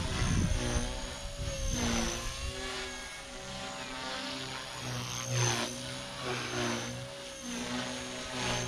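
Blade Fusion 180 Smart electric RC helicopter in flight: the steady whine of its motor and spinning rotor, the pitch wavering and dipping briefly a few times, with a brief swell in loudness about five seconds in.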